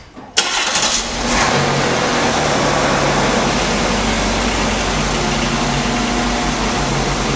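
Oldsmobile car's engine starting after a sharp click about half a second in, then running at a steady idle.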